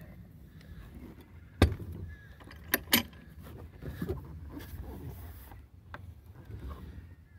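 Handling noise as the camera is carried over the boat's hardtop: a low rustle broken by a few sharp knocks and clatters. The loudest comes about one and a half seconds in, followed by a quick pair about a second later.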